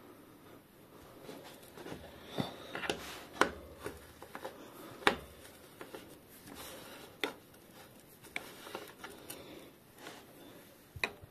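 Metal parts of a bottom bracket facing tool clinking, knocking and scraping against the bicycle frame's bottom bracket shell as they are handled: irregular sharp clicks, a few of them loud, over a soft rustle of hands.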